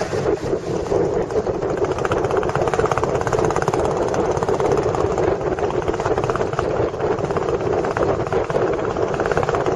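Motorboat engine running steadily at cruising speed, a continuous rapid chugging.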